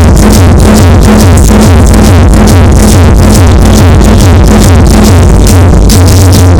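Electronic dance music with a steady techno beat and heavy bass, played very loud through a small event sound system.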